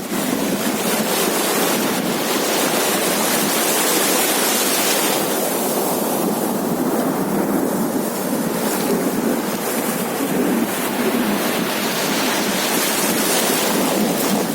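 Sea waves breaking and washing up a beach: a steady rushing surf noise with no pauses, hissier in the first five seconds and again near the end.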